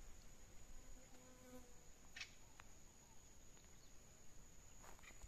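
Near silence with a faint, steady, high-pitched insect buzz and a couple of faint ticks.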